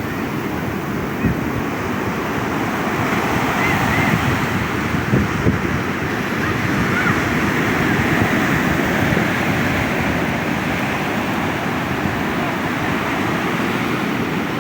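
Ocean surf breaking and washing up the beach, with wind buffeting the microphone; the wash swells louder a few seconds in and then eases off.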